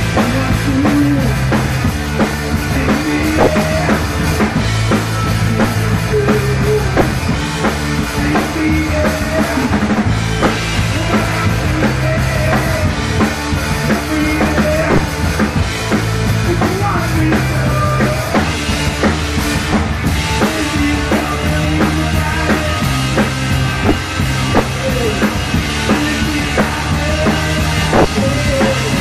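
Live rock band playing, the drum kit loudest with steady bass drum and snare hits, over low bass notes that change every second or so.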